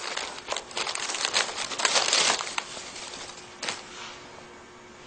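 Crinkly wrapping being handled as hands unfold small folded amulet packets. It comes in rustling bursts through the first two and a half seconds, then one sharp tick and fainter handling.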